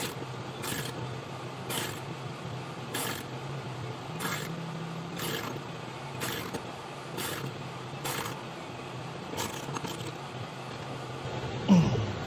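Hand work on a riding mower's idler pulley assembly: short metal clicks about once a second, over a steady low hum, with a brief falling squeak near the end.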